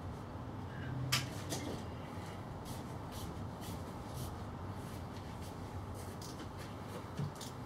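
Quiet background ambience: a steady low hum with scattered faint, high, short ticks and one sharper click about a second in.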